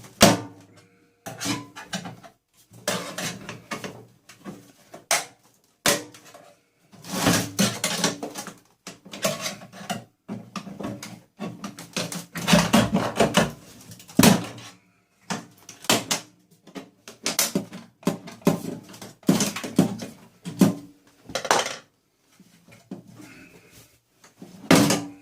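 Hand dismantling of an appliance for scrap: irregular metal and plastic clatters, knocks and scrapes as parts are prised off and handled, with a short quiet gap around the three-quarter mark.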